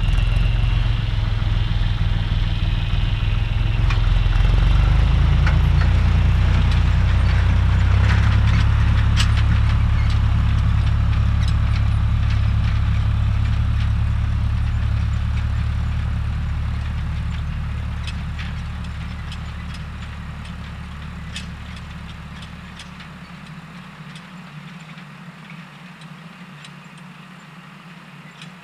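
Tractor engine running steadily as it pulls a seed drill away across the field, a low drone that fades away over the second half as the tractor moves off. Scattered faint clicks and rattles sound over it.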